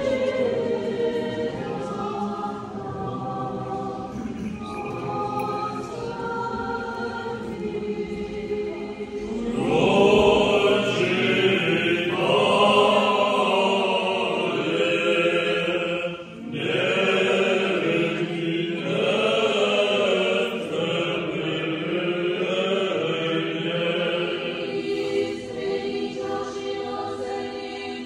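Orthodox church choir singing liturgical chant a cappella, several voices in harmony. It grows louder about ten seconds in and dips briefly near the middle before carrying on.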